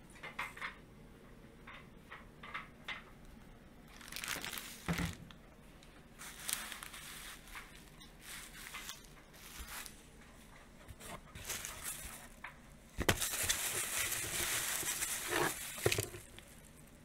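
Bubble wrap crinkling and rustling as it is handled and wrapped around a small part, in short bursts, with a longer, louder stretch of rustling near the end.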